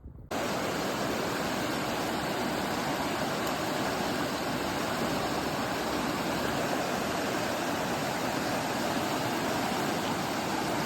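Waterfall, a steady loud rush of falling water that starts abruptly a moment in and holds even throughout.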